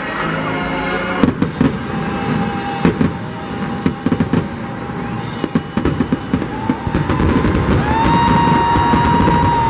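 Fireworks display: a rapid run of sharp bangs and crackles, coming thicker in the second half.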